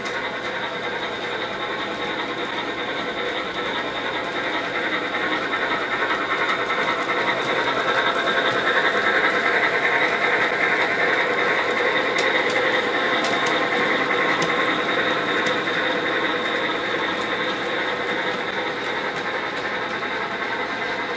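Bachmann G-scale James model locomotive running along the track: a steady whirr of its electric motor and gears with the wheels rolling on the rails. It grows louder about halfway through as it runs close by, with a few light clicks.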